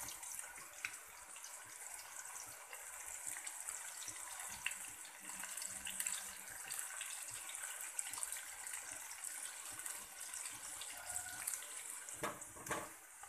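Batter-coated vegetable pieces deep-frying in hot oil in a steel kadai: a steady sizzle with many small crackling pops.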